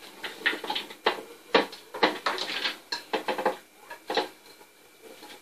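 Chopped onion, green chillies and mint being pushed off a plate into a plastic food-processor bowl: a run of irregular knocks and clatters as the plate taps against the bowl and the pieces drop in.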